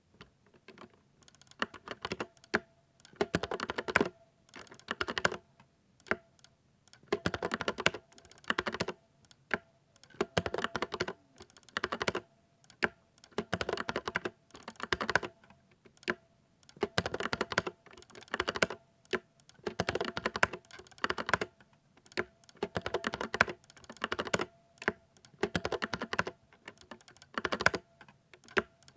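Typing on a 60% mechanical keyboard with silver linear switches: rapid clattering keystrokes in bursts of a second or so, with short pauses between.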